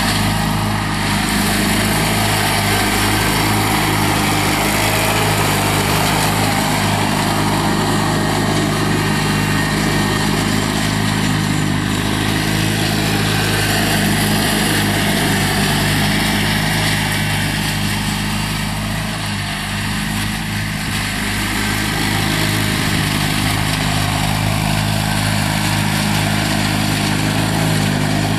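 1987 John Deere 318 garden tractor's Onan twin-cylinder engine running steadily while the tractor is driven around, with a slight dip in level about two-thirds of the way through.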